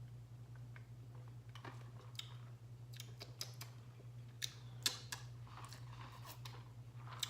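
Someone sipping soda and swallowing: scattered soft clicks and mouth sounds, a few of them louder about four and a half to five seconds in, over a steady low hum.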